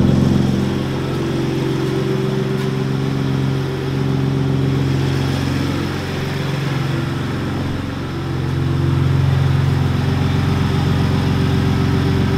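Gen 2 Ford Raptor's 3.5-litre twin-turbo EcoBoost V6 idling through new aftermarket downpipes, on its first run after the install while the fresh catalytic converters break in. The idle is steady, easing slightly in loudness and then picking up a little past the middle.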